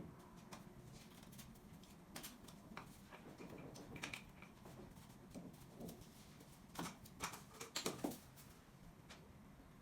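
Faint scattered clicks and light taps from handling and fitting SPC floor planks, with a quick run of sharper clicks about seven to eight seconds in.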